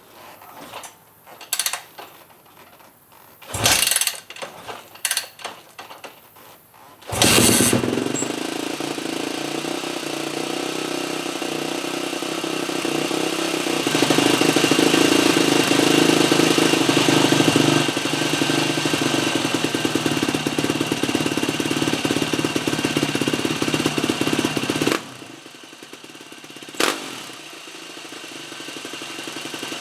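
Kick-starting a Yamaha YZ450F four-stroke single-cylinder dirt bike engine. After a few knocks there are two kicks, and it fires on the second, about seven seconds in, with no starting fluid now that the carb and accelerator pump have been rebuilt. It runs steadily, louder for a few seconds in the middle, then turns much quieter about 25 seconds in.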